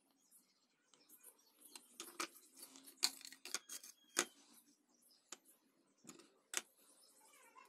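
Faint handling sounds: light clicks, taps and scrapes of 18650 lithium-ion cells and a plastic sheet being set down and moved on a tabletop. The two sharpest knocks come about three and four seconds in.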